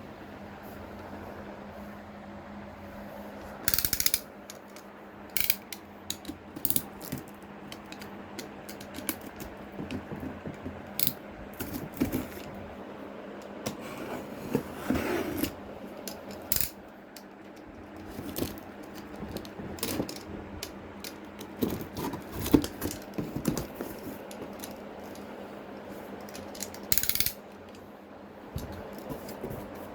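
Plastic parts of a wet and dry vacuum cleaner being handled during unboxing: scattered clicks, knocks and rattles, with two short rasping bursts, one about four seconds in and one near the end.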